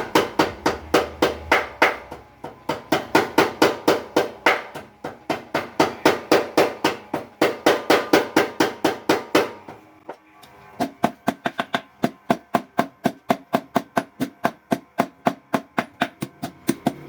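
Blacksmith's power hammer striking in a steady rapid rhythm, about four or five blows a second. It pauses briefly about ten seconds in, then resumes with lighter, quicker blows.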